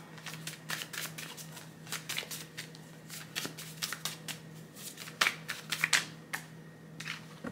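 A deck of tarot cards being shuffled by hand: a quick run of papery riffles and clicks, with two sharper snaps about five and six seconds in.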